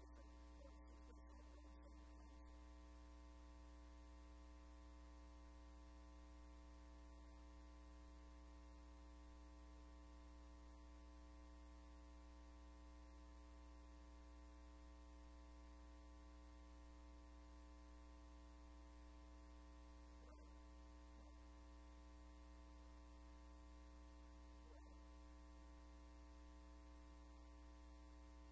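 Near silence apart from a steady electrical mains hum.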